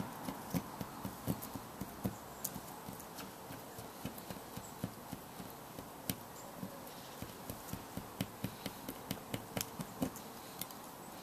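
A run of irregular light clicks and taps, several a second, over a faint steady background.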